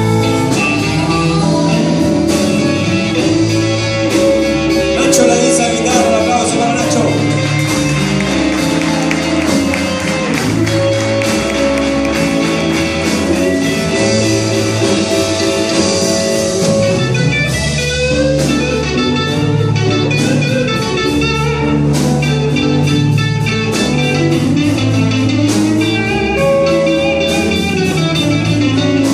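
Live electric blues band playing an instrumental passage: electric guitars over a stepping bass line and drums, with a harmonica among the held melody notes.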